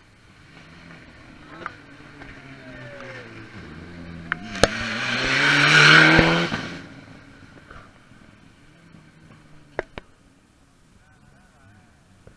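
Rally car engine approaching at high revs, its note climbing as it nears, passing close and loud about five to six seconds in with a rush of noise, then fading quickly. A few sharp cracks ring out around the pass.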